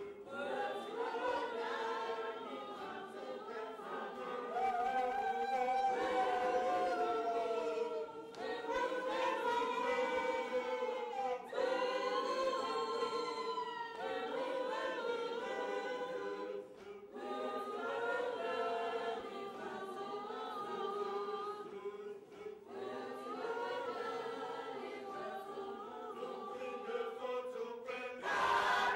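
A group of people singing together as a choir, many voices at once.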